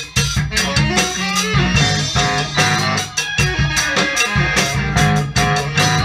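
A live band playing together: a drum kit keeps a steady beat under an electric bass line, with guitar and sustained melody notes over the top.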